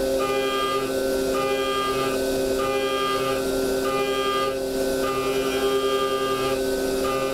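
DMU 50 CNC machining centre milling 6061 aluminium with an end mill: a steady pitched whine from the cut, with a higher set of tones that cuts in and out about once a second.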